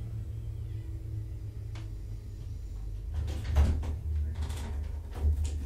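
A door being opened and handled: a click, then a few short knocks and scrapes, the loudest about three and a half seconds in, over a steady low hum.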